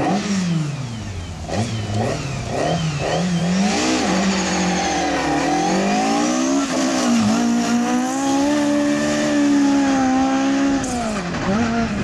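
Ford Sierra RS500 Cosworth rally car's turbocharged 2.0-litre four-cylinder engine, revved in several short rises and falls at first, then pulling hard. Its pitch climbs, dips a few times and holds high.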